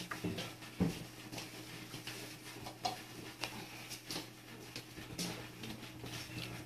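Cats crunching dry kibble from plates: a steady run of small crunches and clicks, with one louder knock just under a second in.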